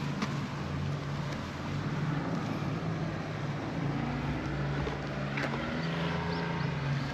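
Steady low engine drone from a distant motor, its pitch wavering slightly.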